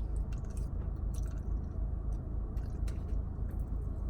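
A person chewing fettuccine Alfredo close to the microphone: soft, wet mouth sounds with scattered small clicks, over a steady low rumble.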